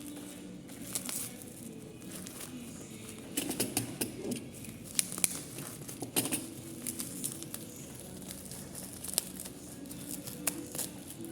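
Packaging being handled: plastic or paper crinkling and rustling, with irregular small clicks and taps, busiest in the middle.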